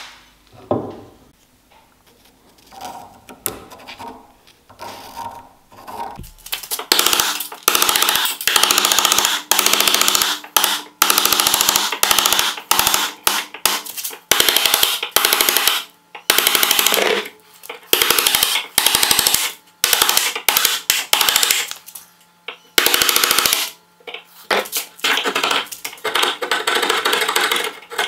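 Hand tools scraping and shaving the end grain of an ash axe handle: a few quiet taps and scrapes at first, then from about seven seconds in, loud, rapid scraping strokes in quick runs with short pauses.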